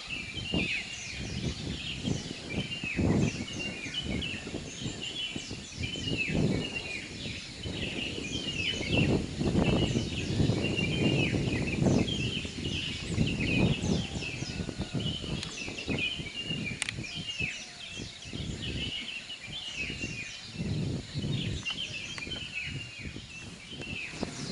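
Many birds singing together in a steady chorus of short, repeated chirps. Under them, an uneven low rumble of wind on the microphone swells and fades, loudest around the middle.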